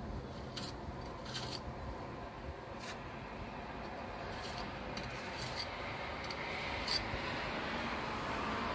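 A hand tool scraping and clicking along a window-frame joint as burnt sand mastic is pressed in, in several short separate scrapes, the sharpest a little before the end. A steady background rumble grows louder toward the end.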